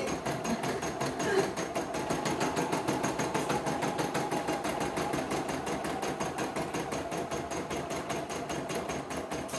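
CNY E960 computerised embroidery machine stitching out a design: a rapid, even needle clatter as the hoop carriage moves the fabric under the needle.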